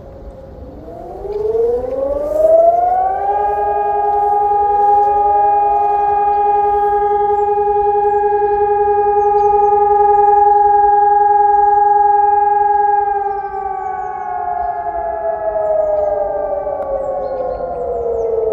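Several electronic civil-defence sirens, probably of the Helin and Ergatec types, sounding a monthly test alarm a moment apart and overlapping. Their pitch rises over two to three seconds, holds a steady tone for about ten seconds, then slowly falls, consistent with one tone of the fire-alarm test signal.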